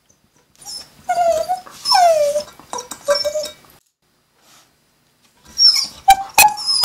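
Half-border collie whining: a few drawn-out cries that fall in pitch in the first few seconds, then after a pause more short whines near the end, with two sharp clicks.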